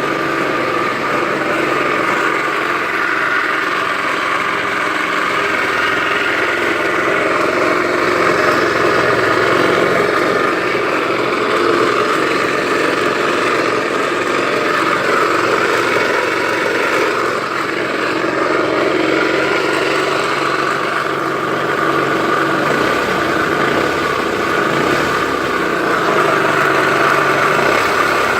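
Honda Smart Dio scooter engine running steadily just after starting, with an abnormal noise that the mechanic thinks comes from play in the crankshaft bearings.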